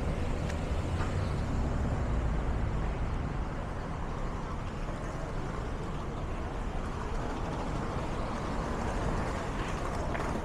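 Street traffic: a steady low rumble of passing vehicles, heaviest in the first few seconds.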